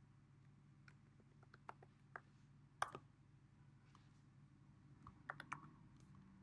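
Faint, irregular clicks of computer keys as a password is typed in, scattered singly with a short cluster near the end, over a low steady hum.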